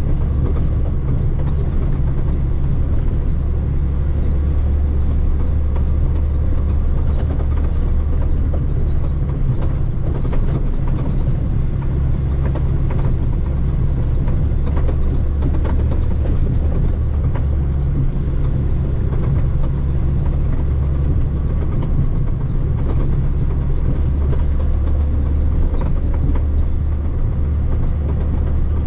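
Heavy diesel log truck engine pulling steadily under load up a hill in third gear, a continuous low drone.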